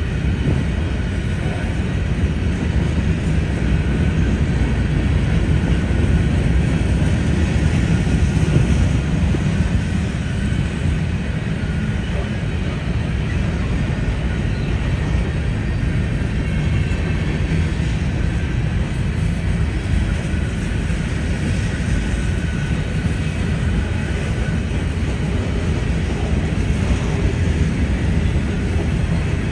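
Freight train of covered hopper cars rolling past, a steady rumble of wheels on rail.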